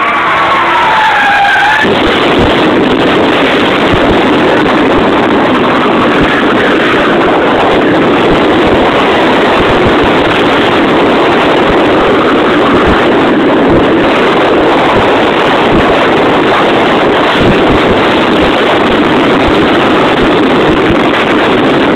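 Mazda RX-8 driven hard in a drift, heard from inside the car: loud engine and tyre noise. A squeal gliding in pitch runs for the first two seconds, then gives way to a steady, dense wash of noise.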